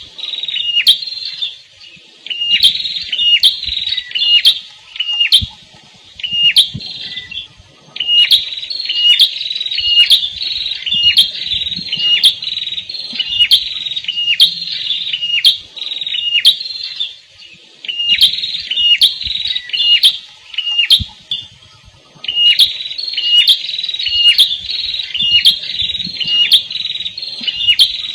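Prenjak kepala merah songbird calling: rapid series of sharp, high chirping notes in bouts of several seconds, broken by short pauses about every few seconds.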